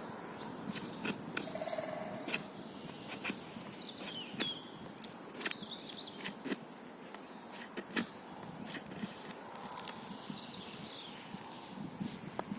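Folding knife blade shaving thin curls off a piece of wood: a run of short, sharp, irregular cuts and clicks.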